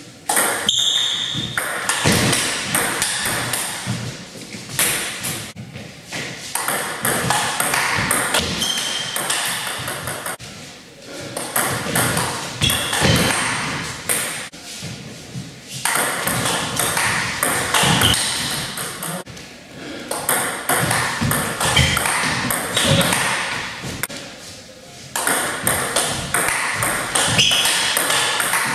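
Table tennis rallies: a plastic ball clicking off rubber bats and bouncing on the table in quick exchanges, with short breaks between points.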